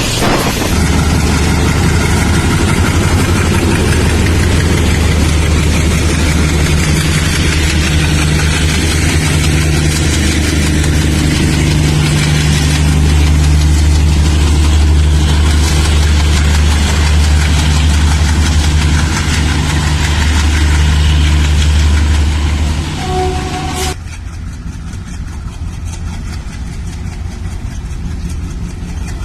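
WDG3A diesel locomotive's ALCO 16-cylinder engine chugging with a steady, deep throb. A short tone sounds just before a sudden cut, after which another WDG3A engine runs more quietly.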